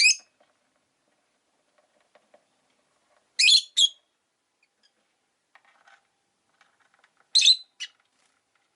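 Rosy-faced lovebirds calling: a sharp, shrill chirp right at the start, a pair about three and a half seconds in, and another pair near the end, with faint soft chatter between.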